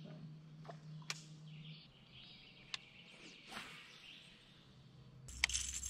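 Quiet open-air ambience on the water: faint bird calls, a low steady hum that drops in pitch about two seconds in, and a few sharp clicks. Near the end a louder low rumble with hiss comes in.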